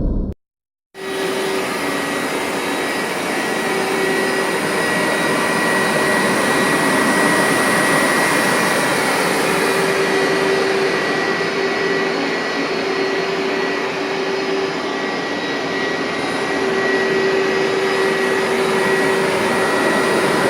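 Hoover SteamVac Widepath carpet cleaner running: a steady rush of its vacuum motor with a constant high whine. It starts abruptly about a second in, after a moment of silence.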